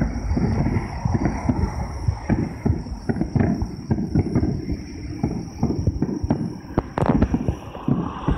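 Aerial firework shells bursting far off, heard as a rapid, irregular series of low booms, with two sharper cracks about seven seconds in.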